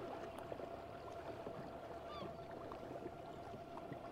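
Remigo One electric outboard running under way, almost silent: a faint steady hum under the wash of water around the boat. One short bird call about two seconds in.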